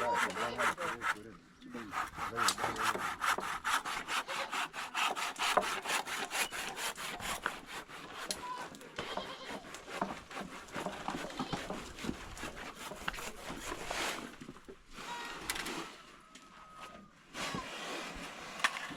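Hand saw cutting with quick, regular back-and-forth strokes, becoming more irregular in the last few seconds.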